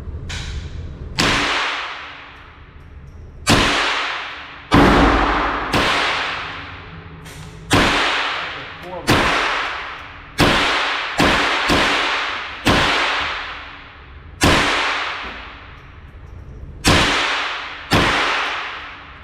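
A series of about thirteen gunshots at uneven intervals, each sharp crack followed by a long reverberating tail, with a quicker cluster of shots in the middle.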